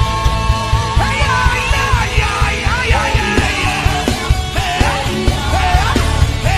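Loud worship music: a full band with drums keeps a steady beat under a lead melody that holds long notes and slides up and down in pitch.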